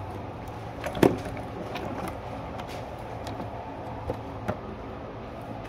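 Gear being handled on a shooting bench: one sharp knock about a second in, then a few lighter clicks, over a steady low hum.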